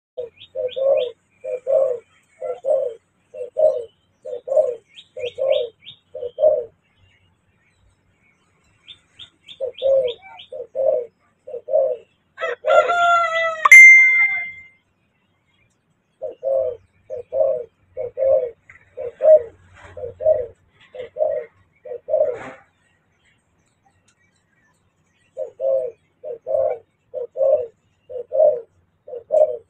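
Zebra dove cooing: a string of short, staccato coos, about one a second, in four bouts with pauses between them. About 13 seconds in, another bird gives a louder, longer call that cuts across the coos.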